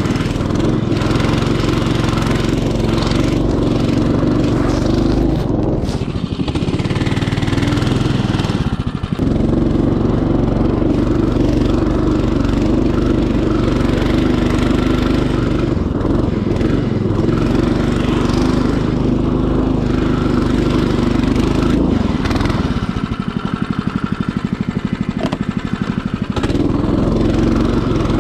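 Small engine of a motorized snowboard running steadily under way. It eases off briefly about nine seconds in, and again for a few seconds near the end before picking back up.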